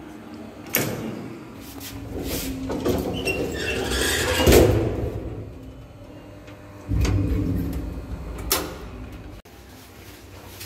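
A click, then the collapsible metal scissor gate of an old lift dragged along its track in one long rattling slide. A few seconds later comes a louder clunk and a sharp click from a door and its latch.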